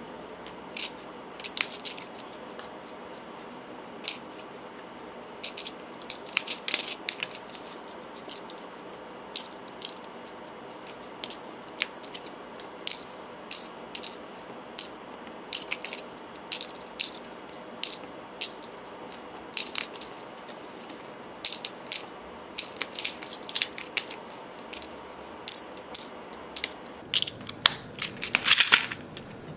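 Small metal-rimmed nail art charms clicking against a stone countertop and into clear plastic storage compartments as they are picked up and dropped in, in irregular sharp clicks, with a denser flurry of clicks near the end.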